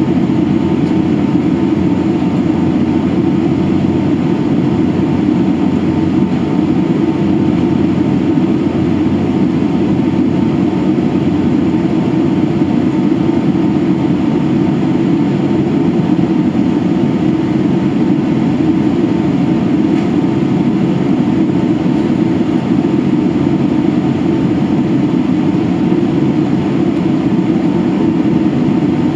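Steady cabin drone inside a Boeing 767-300ER in flight, heard from a seat over the wing: its Rolls-Royce RB211 engines and rushing airflow make a deep, even roar that does not change.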